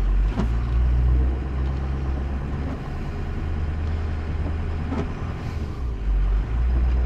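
Vehicle engine running with a steady low drone, heard from inside the cab while the vehicle struggles for grip on an icy, muddy trail.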